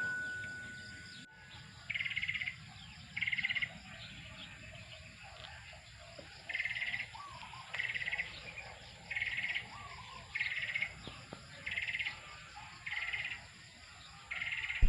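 Outdoor ambience with a small animal's buzzy, fast-pulsed chirp, about half a second long, repeated roughly every second, and a couple of fainter softer chirps. Music fades out in the first second.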